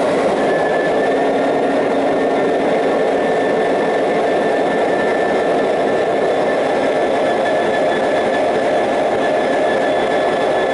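Class 66 locomotive's EMD 710 two-stroke V12 diesel engine running steadily at idle just after start-up, heard close up in the engine room, with a steady high whine over its running.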